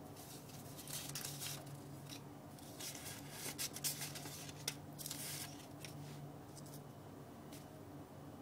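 Paper strips rustling and sliding as the top strip is handled and lifted off the stack, in several irregular bursts, busiest in the middle, with a couple of light ticks near the end. A faint steady low hum runs underneath.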